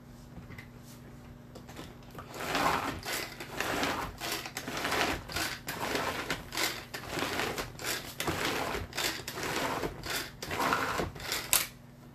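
Pull-cord food chopper being worked in a quick series of pulls, about two a second, starting about two seconds in: the cord's whirring rattle and the blades chopping basil, garlic, almonds and olive oil into pesto.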